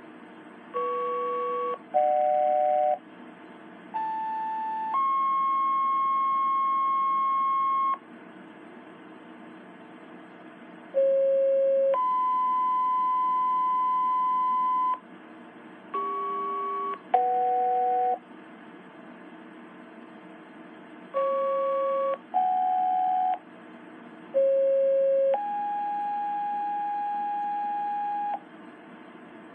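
Two-tone sequential pager tones from a Motorola HT1000 handheld radio's speaker. There are three pages, each a steady tone of about a second stepping straight into a different steady tone held about three seconds. Shorter pairs of quick tone bursts fall between them, and a low hiss fills the gaps.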